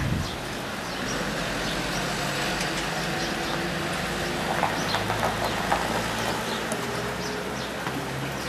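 A Nissan SUV's engine running steadily as the car rolls slowly in over gravel and pulls up.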